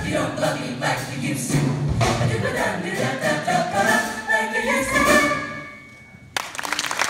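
Amplified mixed-voice a cappella group singing the closing chord of a song, held, then fading out. About a second before the end, audience applause breaks out suddenly.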